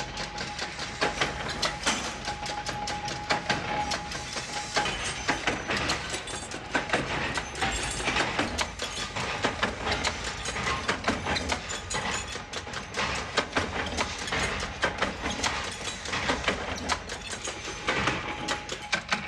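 Flywheel-driven mechanical power press running and stamping steel lock plates: a dense, uneven clatter of knocks over a steady machine rumble, with a faint steady whine in the first few seconds.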